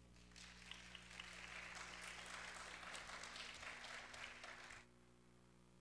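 Congregation applauding, a dense patter of many hands clapping that begins a moment in and stops abruptly about a second before the end.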